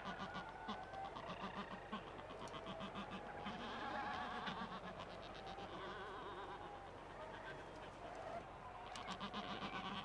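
Black-browed albatrosses calling: a rapid rattling, buzzing call pulsing about ten times a second near the start and again near the end, with wavering calls in between.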